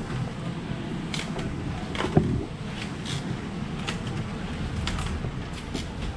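Scattered sharp clicks and clacks of clear plastic takeaway fruit boxes being handled and closed, with one louder knock about two seconds in, over a steady low hum.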